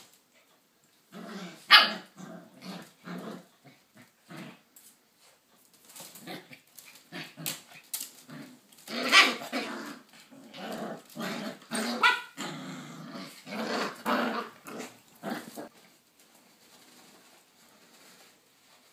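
Australian Shepherd puppy and adult dog growling and barking at each other in rough play, a string of short growls with one sharp bark about two seconds in. It dies down to faint sounds for the last few seconds.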